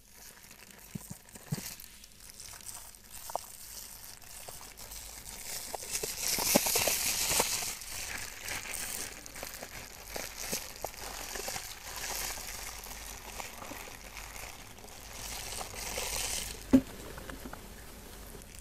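Thin plastic food bags crinkling and rustling as they are handled and emptied, loudest a few seconds past the middle, with small clicks throughout and one sharp tap near the end.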